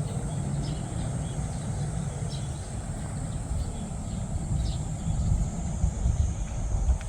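Outdoor background noise: an uneven low rumble with a steady high-pitched hiss and a scatter of faint short chirps.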